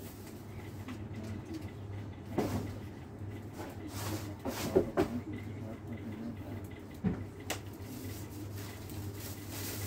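A few short knocks and clatters of goods and boxes being handled and set down, the loudest a quick cluster about halfway through, over a steady low hum.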